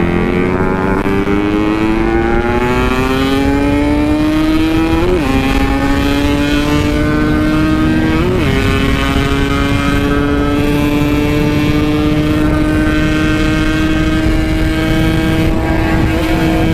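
Yamaha RX-King's 135cc single-cylinder two-stroke engine at hard throttle, its pitch rising through the gears. It shifts up about five seconds in and again about eight seconds in, then pulls slowly higher, with wind rushing past.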